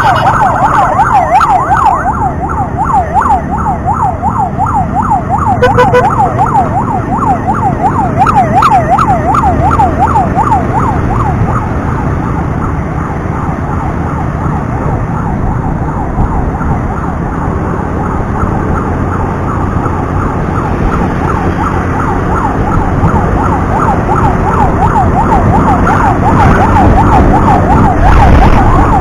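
Ambulance siren sounding in a fast up-and-down yelp over road and wind noise. It fades about twelve seconds in and grows louder again near the end.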